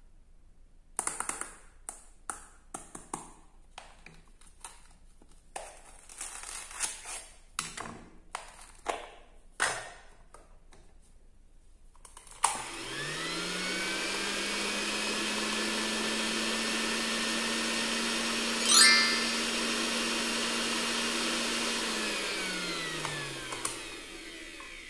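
Plastic clicks and knocks as toy kitchen pieces are handled and fitted together. About halfway through, the small battery motor of a toy blender spins up, runs at a steady hum for about ten seconds with a brief sharp squeal near the middle, then winds down and stops.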